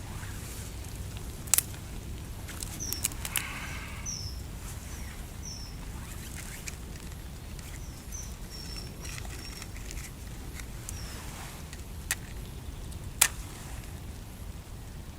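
A few sharp snaps and clicks of dry twigs and grass being broken and handled for kindling, the loudest one near the end, over a steady wind-and-rain background. Small birds chirp in short, high notes through the first part.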